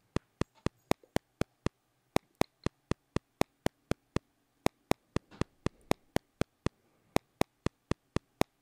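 Cubase 9.5 software metronome playing a custom ten-click-per-measure pattern: sharp clicks about four a second, some accented, with one click switched off in each measure so a short gap recurs about every two and a half seconds. It sounds a little strange, an uneven grouping rather than a plain steady beat.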